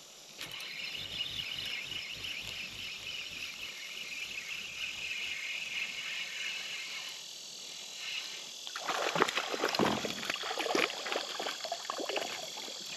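A hooked fish splashing and thrashing at the water's surface in repeated irregular bursts, starting about nine seconds in, over a steady high-pitched buzz of insects.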